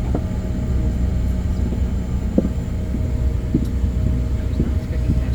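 Steady low cabin rumble and hum of a Bombardier CRJ-900 regional jet taxiing, its rear-mounted turbofan engines at low power, with a steady tone running through it.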